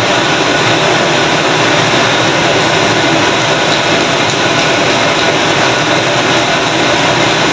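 A bhatura deep-frying in a wok of hot oil over a gas wok burner: a loud, steady rush of sizzling oil and burner roar while oil is ladled over the puffing dough.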